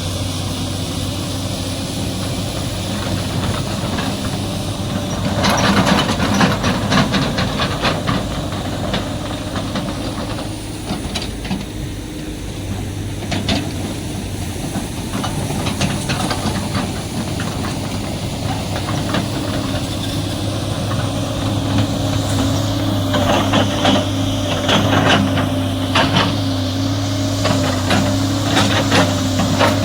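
Excavator's diesel engine running steadily, with two spells of rapid clanking and knocking from the machine as it works: one about five seconds in and another in the last quarter.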